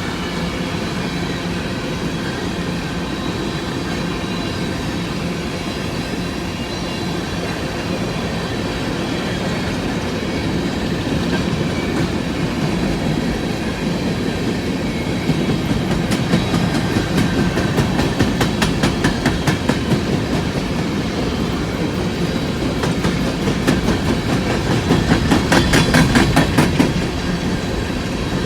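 Empty coal train cars rolling past: a steady rumble of steel wheels on rail. In the second half come runs of rapid clickety-clack as the wheelsets cross rail joints, loudest near the end.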